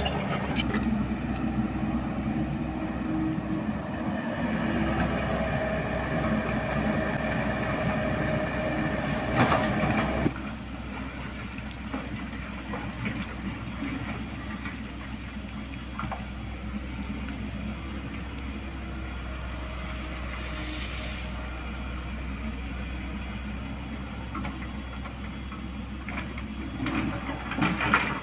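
Diesel engine of heavy construction machinery running steadily, louder for the first ten seconds with a faint rising whine, then settling to a lower steady run. A few clanks, about ten seconds in and near the end.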